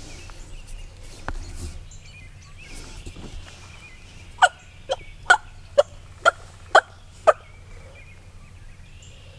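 Wild turkey yelping: a run of seven short, evenly spaced yelps, about two a second, which then stop. Faint rustling in the brush before them.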